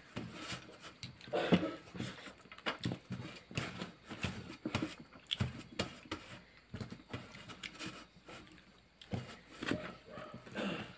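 Fingers scraping and tapping on a stainless steel plate while scooping up the last of the rice by hand, mixed with chewing. The sound is a string of short, irregular clicks and scrapes.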